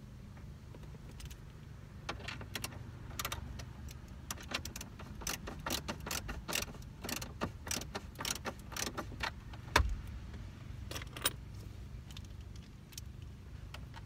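Plastic and metal clicking and rattling as an aftermarket car stereo in its mounting bracket is pushed and worked into the dash opening, with one sharper knock about ten seconds in.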